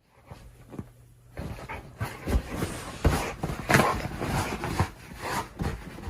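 An animal, likely a pet dog, making a run of irregular noisy sounds and knocks close to the microphone.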